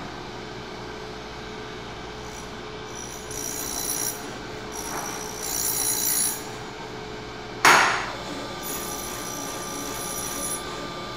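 Surface grinder spindle running with a steady hum while a single-point diamond dresses the bottom of the grinding wheel flat, giving a high-pitched squeal in several passes of a second or two each. A sharp clack nearly eight seconds in is the loudest sound.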